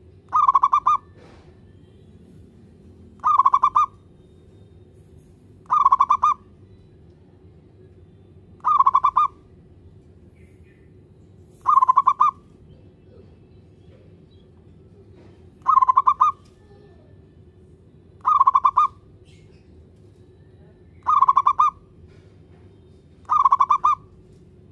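Zebra dove (perkutut) singing its short, trilled cooing call nine times, about half a second each, with a pause of a few seconds between calls.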